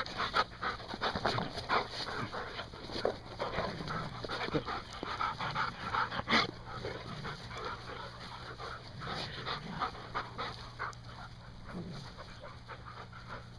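Terriers panting rapidly close by, the breathing growing fainter in the last few seconds.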